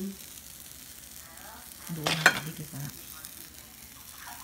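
Shredded cheese sizzling faintly on the hot plates of a mini waffle maker, with a short knock about two seconds in.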